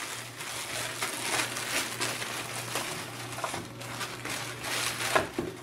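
Plastic bubble wrap rustling and crinkling as it is handled and pulled open, in irregular bursts, with one louder crackle near the end.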